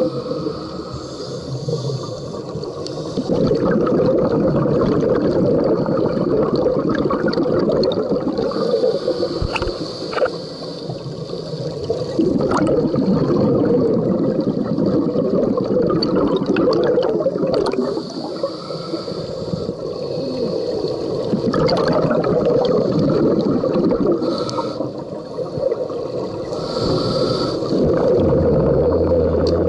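A scuba diver breathing through a regulator underwater, heard through the camera's underwater housing. Exhaled bubbles rush and gurgle, alternating with hissing inhalations in repeated breath cycles several seconds long.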